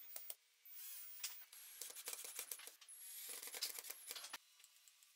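Cordless drill with a screwdriver bit driving small screws through a brass hinge into wood: short runs of high motor whine mixed with ticks and scraping as the screws turn in and seat, stopping about four seconds in.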